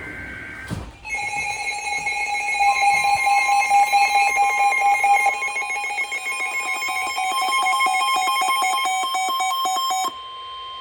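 Emergency Alert System attention signal. A short digital data burst ends in the first second, then a loud, steady multi-pitch alarm tone holds for about nine seconds and cuts off suddenly, leaving a single steadier tone sounding a little longer. The tones announce an emergency weather warning broadcast.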